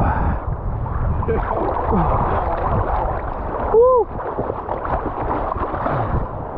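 Seawater sloshing and lapping in waves, with a low rumble. About four seconds in, a person gives one short cry that rises and falls in pitch, the loudest sound.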